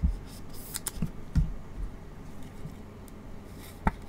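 Trading card being slid into a soft plastic sleeve and rigid plastic top loader by gloved hands: light plastic rustling and a few soft taps, with one sharp click near the end.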